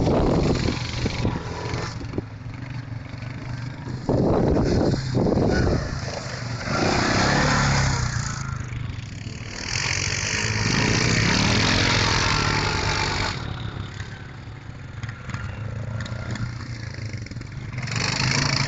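Quad bike (ATV) engines running and revving on sand slopes, rising and falling in pitch, with several louder stretches of noise.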